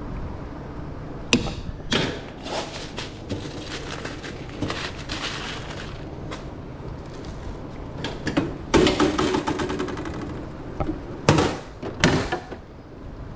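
Scattered clanks and knocks of a hot dog cart being worked while orders are made up, with a busier stretch of clattering and rustling about two-thirds in and two loud knocks near the end.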